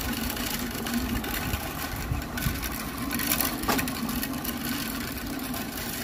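Push broadcast spreader rolling over a lawn, its wheel-driven spinner making a steady mechanical whirr, with one sharp click a little after halfway.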